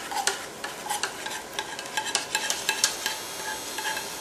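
Alfredo sauce sizzling as it is poured over sautéed mushrooms in a hot skillet: a steady hiss with many irregular sharp crackles.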